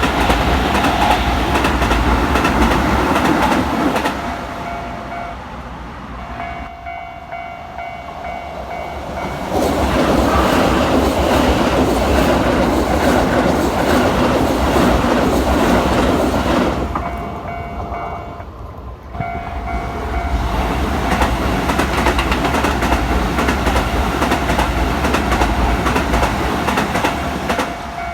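Keisei electric trains running through a railway level crossing, the wheels clattering over the rail joints, in two passes: one at the start and a louder, longer one from about ten to seventeen seconds in. Between and after the passes the crossing's electronic warning bell rings on a steady tone.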